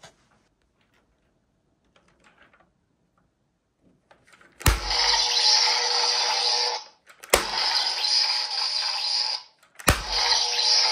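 Electronic toy sword's speaker playing a crackling electric-zap sound effect, three times in a row, each lasting about two seconds and starting with a sharp click; before the first, only faint handling clicks.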